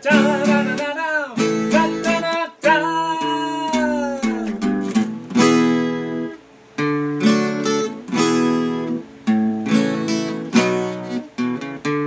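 Acoustic guitar strummed in chords, with a man singing over it in the first half, ending on a long held note that falls away about four and a half seconds in. After that the guitar carries on alone, with a short break about six seconds in.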